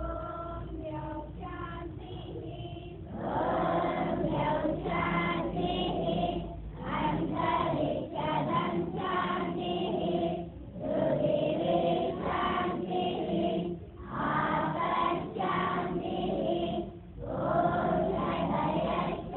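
A group of schoolchildren singing a prayer together in unison, in phrases of a few seconds with short pauses for breath between them; the singing is quieter for the first few seconds.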